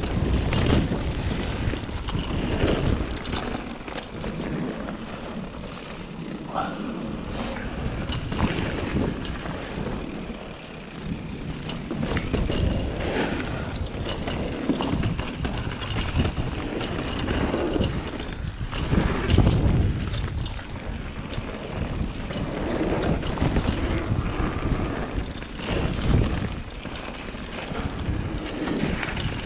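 Wind rushing and buffeting over the microphone of a chest-mounted action camera in fast motion, rising and falling in uneven gusts.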